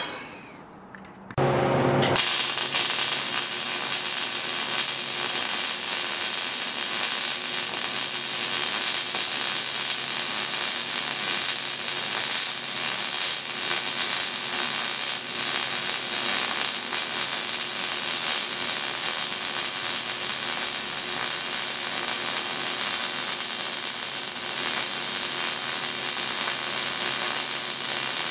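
MIG welding arc crackling steadily, starting about two seconds in, as a circular weave bead is run in a push technique along a steel T-joint to bridge an 1/8-inch gap.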